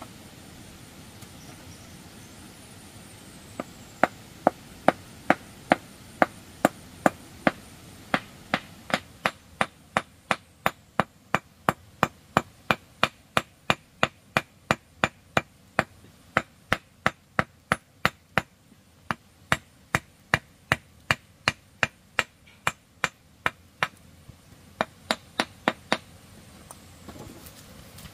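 A hand hammer striking hardened concrete along a brick edge in a steady rhythm, about two to three sharp blows a second, chipping off the excess. The blows begin a few seconds in, pause briefly a few times, and stop near the end.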